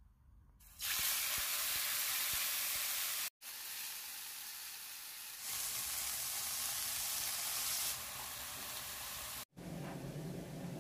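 Marinated chicken breasts sizzling as they fry in oil in a nonstick pan, a steady hiss that stops and restarts abruptly twice with edits. Near the end a different, lower sound takes over.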